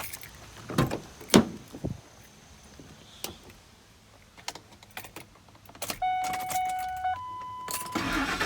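Keys jangling and clicks of a 2002 Ford F-150's door and ignition. About six seconds in, a pulsing warning chime sounds and then changes to a steady tone. Near the end the starter begins cranking the warm engine.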